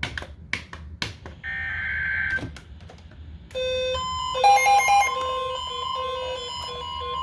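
Electronic emergency-alert tones. After a few clicks and a short buzzing burst, a steady beep tone comes on about four seconds in and holds, with rapid pulsed beeps over it.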